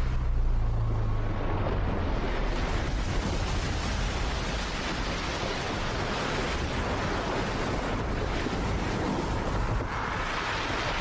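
Film sound effects of surging, crashing sea water: a continuous dense rush of spray and wind, with a deep rumble in the first two seconds and a swell near the end as something plunges into the water.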